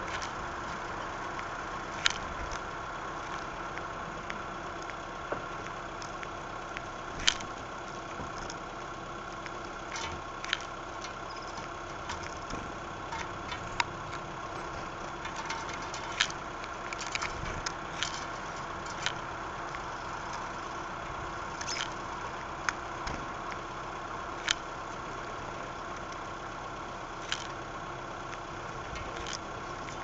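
Irregular sharp taps of a male common blackbird's bill pecking grain on a wooden bird table, close to the microphone, over a steady electrical hum.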